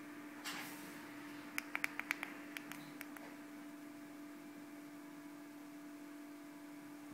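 Handling noise from fingers gripping an iPod shuffle: a brief rustle about half a second in, then a quick run of about seven small sharp clicks over a second and a half, over a steady electrical hum.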